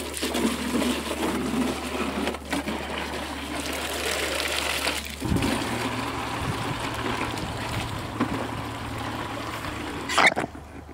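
Water running through a hose into plastic one-gallon milk jugs, filling them: a steady rushing and trickling that shifts a little about halfway through.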